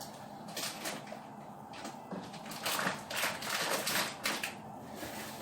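Rapid clicking and scraping of kitchen utensils, in a short burst and then a longer run of clicks, over a steady low background hum.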